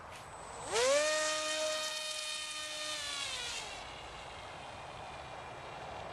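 ElectriFly Ammo 3180 kV in-runner brushless motor spinning its propeller in a short throttle burst: a high electric whine that winds up quickly, holds a steady pitch for about two seconds, then drops away as the throttle is cut.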